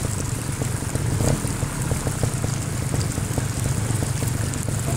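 Trials motorcycle's single-cylinder engine running steadily at idle, a low even burble.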